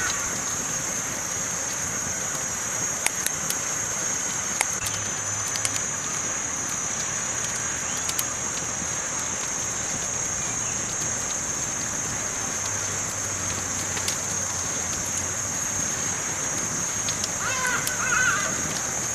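Campfire crackling with a steady hiss and a few sharp pops scattered through the first half. A bird calls a few times near the end.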